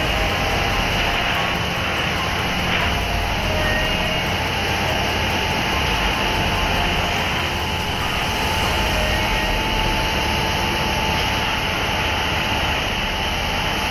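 Plasser & Theurer 08-16 multi tie tamper (ballast tamping machine) running on the track, its Deutz F8L413F air-cooled V8 diesel and working gear making a steady, dense machinery din.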